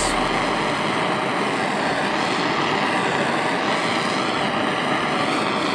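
Propane torch flame burning steadily: a continuous, even hiss as it heats brass and stainless steel plates for silver brazing.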